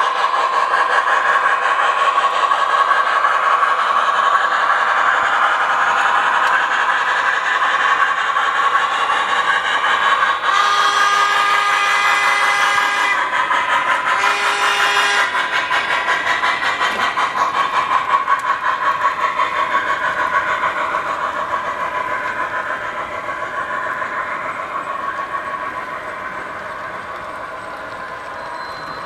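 A model freight train runs steadily along the track, its sound slowly fading toward the end. A whistle sounds twice, first a blast of about two and a half seconds starting around ten seconds in, then a shorter one of about a second.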